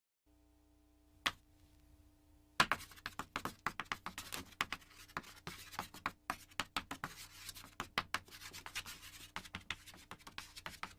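A faint steady hum comes in with a single click. About two and a half seconds in, a fast, irregular run of scratching, scraping clicks begins and keeps going.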